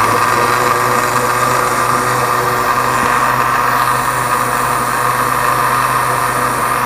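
Panasonic blender motor running steadily, churning a full jug of yogurt-set cream (malai) to separate out butter.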